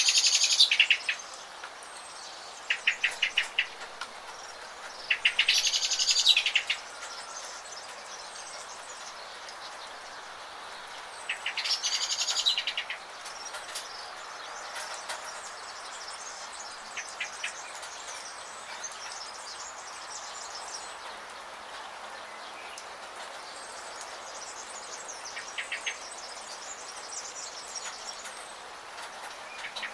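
Songbirds chirping and singing over a steady hiss of rain. Loud song phrases come near the start, around three and six seconds in and again around twelve seconds, with fainter chirps throughout.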